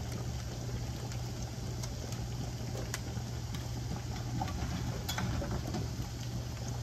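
Filled glass canning jars being lifted out of a water-bath canner with a metal jar lifter: a few sharp clinks of glass and metal over a steady low hum.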